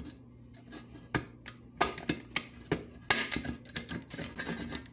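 Jilson hand shears cutting through the pressed sheet steel of an old Buddy L toy truck cab: a series of sharp metallic snips and crunches, a few strokes a second, bunched more tightly about three seconds in.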